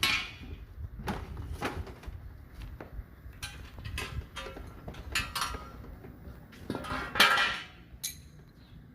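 Irregular metallic clinks and knocks of hard objects being handled, a dozen or so in a row, the loudest about seven seconds in.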